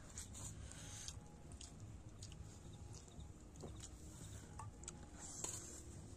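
Quiet chewing and eating sounds of people eating by hand, with scattered small clicks over a low steady background hum.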